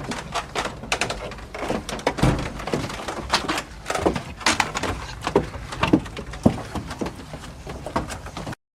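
Wooden stairs creaking: a run of irregular creaks and knocks, with a heavier thud about two seconds in, cutting off abruptly near the end.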